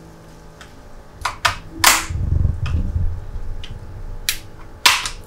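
A handful of sharp clicks and snaps from a small squeeze-tab hose clamp and pipe being worked loose at a motorcycle's air box, the loudest about two seconds in and near the end, with a low rumble of handling in between.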